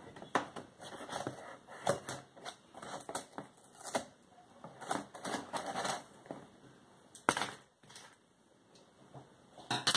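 Hands handling a large cardboard shipping box: irregular crackling, scraping and knocks, the sharpest knock about seven seconds in and another near the end.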